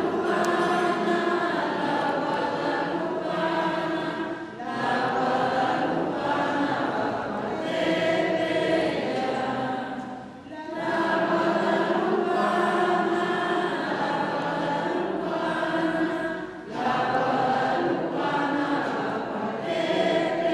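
A church congregation singing a hymn together, in long phrases with brief breaks about every six seconds.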